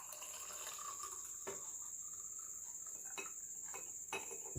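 Herbal cough-and-cold decoction being poured into a serving glass: a faint, steady trickle of liquid with a few light knocks of vessel against glass.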